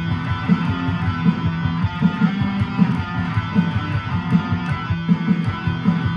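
Guitar played over a backing track: a busy, steady run of low plucked notes.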